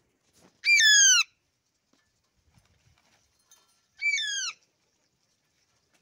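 Alexandrine parakeet giving two loud calls about three seconds apart. Each call lasts about half a second and steps up, then falls in pitch.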